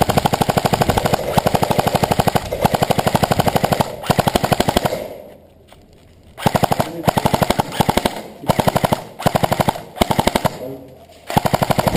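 Airsoft electric rifle firing on full auto: a rapid rattle of shots. A long burst runs for about five seconds with brief breaks, then after a short pause comes a string of quick short bursts.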